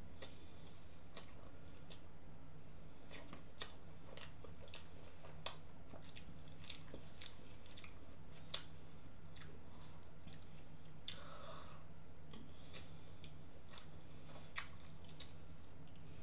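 A person eating from a bowl with a spoon close to the microphone: chewing, with irregular sharp clicks a few times a second, over a steady low hum.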